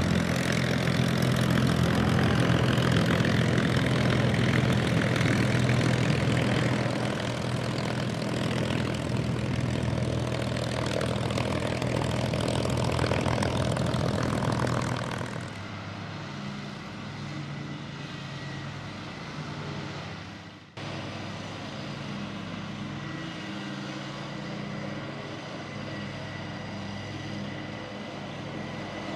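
Merlin V-12 engine of a P-51D Mustang running on the ground with its propeller turning, a loud, steady run. About halfway through it gives way abruptly to a quieter, lower-pitched warbird piston engine idling, with a brief dropout a few seconds later.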